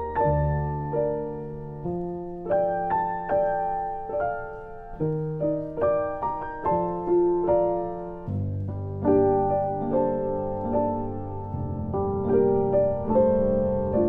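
Background piano music: a slow piece of single notes, each struck and fading, over held low bass notes.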